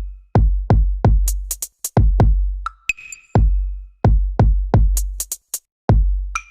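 Electronic background music with a heavy, regular drum-machine beat: deep bass-drum kicks with crisp high percussion hits between them.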